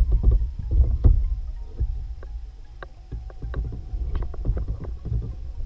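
Low rumbling of wind and water around a kayak on the microphone, broken by scattered light clicks and knocks of fishing gear being handled in the boat, most of them in the first second or so.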